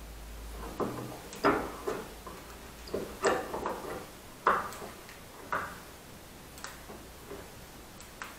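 Screw clamps being turned and tightened by hand to press a glued ebony veneer onto a fingerboard: a run of irregular clicks and knocks, the loudest about one and a half, three and four and a half seconds in.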